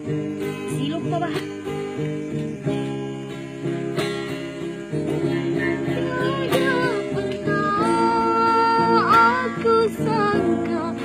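Acoustic guitar strummed in a steady rhythm, with a young woman singing over it; her voice comes in strongly about halfway through and holds a long note.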